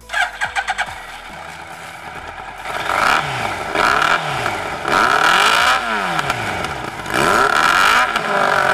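Yamaha YZF-R1 inline-four engine with an aftermarket slip-on silencer, revved hard while the bike stands: a short rattle of quick pops at the start, then it settles before being blipped up and down about once a second, each rev rising and falling in pitch.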